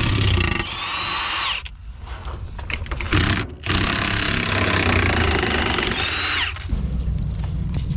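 A handheld power tool run in two bursts, the second about three seconds long, its motor whine winding up and then down each time, as it works on the bolts of a heavy steel skid plate.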